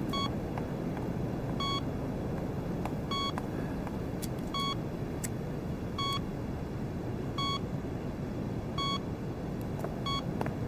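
Bedside heart monitor beeping once with each heartbeat, short even beeps about one every second and a half. The steady rhythm shows the patient's heartbeat as normal.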